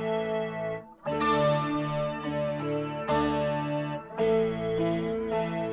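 Guitar played through a Boss SY-200 synthesizer pedal set to lead variation 22, giving sustained keyboard-like synth chords. A new chord is struck about a second in, again at about three seconds, and again about four seconds in.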